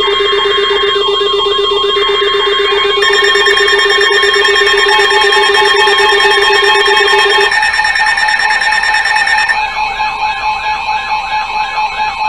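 Emergency Alert System alert tones from weather alert radios sounding together: several steady tones at different pitches layered with a rapidly repeating warbling alarm. They signal the start of an incoming severe thunderstorm warning.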